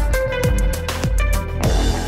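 Electronic background music with a steady beat, about two drum hits a second under held notes.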